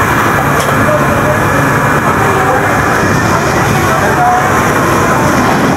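Steady din of a garment factory floor: sewing and seam-taping machines running continuously, with voices chattering in the background.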